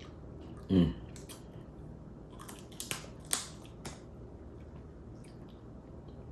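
Crab shell being cracked and crunched while eating: a few sharp snaps and clicks close together about three seconds in, after one short low sound a little under a second in.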